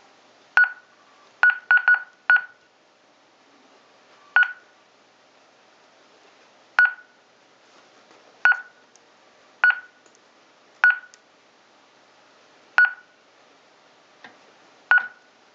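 Honeywell Ademco LYNX Touch L7000 alarm panel giving short, high single beeps, about a dozen at uneven intervals, with a quick run of four about a second and a half in.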